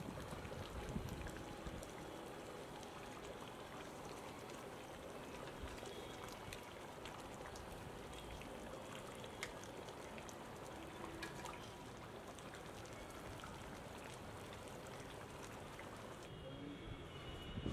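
Thick fish curry simmering in an aluminium kadai, a steady bubbling with many small scattered pops.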